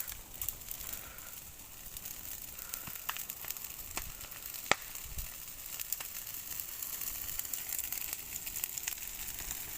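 Open fire burning and crackling, with a steady hiss, scattered small pops and one sharp, loud pop about halfway through.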